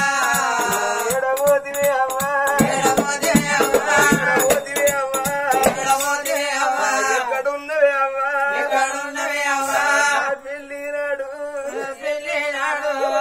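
Telangana Oggu Katha folk music: a voice singing long, wavering notes over a drum and other percussion. The drumming is dense in the first half and drops away after about six seconds, leaving mostly the singing voice.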